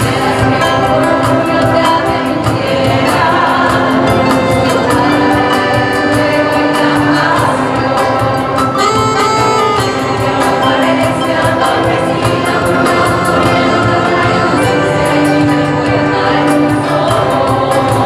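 Choir of older adults singing together with a string orchestra of violins, over a quick steady beat.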